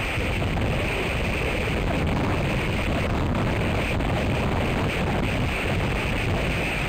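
Strong wind blowing across the microphone: a constant rushing noise with a deep rumble underneath and no breaks.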